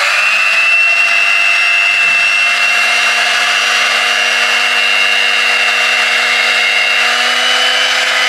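Tower electric hand mixer running steadily, its beaters whisking cake batter, with a high motor whine; the pitch steps up slightly about seven seconds in.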